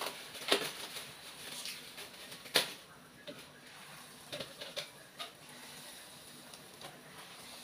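Batter-coated shrimp frying in a pan of hot oil: a quiet sizzle with a few sharp clicks and taps, the loudest about half a second and two and a half seconds in, then smaller ones a little later.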